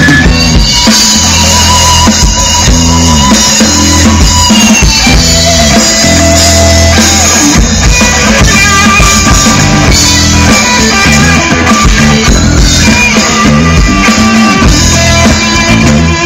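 Rock band playing loudly through a stage PA at a soundcheck: electric guitar and drum kit over sustained bass notes that shift pitch every second or so.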